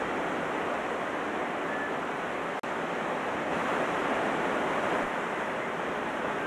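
Small waves washing up a sandy beach: a steady rush of surf, broken by a brief dropout about two and a half seconds in.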